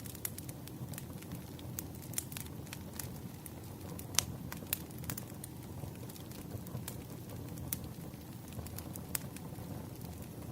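Wood fire burning: a steady low rumble of flames with irregular sharp crackles and pops from the burning logs, the loudest pop about four seconds in.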